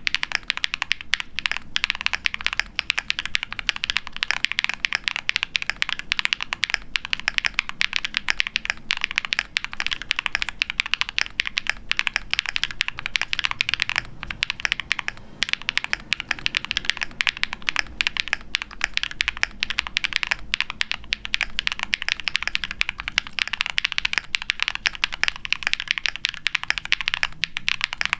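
Continuous fast typing on a KBDfans Tofu60 aluminium keyboard with a POM plate, foam dampening, factory-lubed Huano Cherry Blossom linear switches and PBT keycaps: a dense stream of high-pitched clacks, with a short pause about halfway through.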